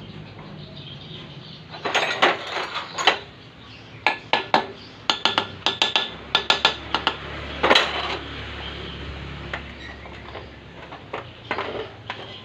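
Metal tools and engine parts clinking and clattering in irregular runs of sharp clicks, busiest through the middle, with a few more clinks near the end.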